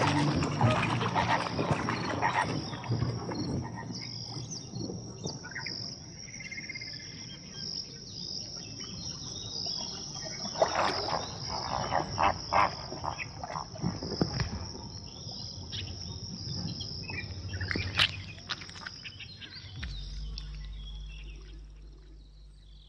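Steady high-pitched chirring of crickets, with the calls and wing-flapping of a flamingo flock standing out in the first couple of seconds and again about ten to fourteen seconds in.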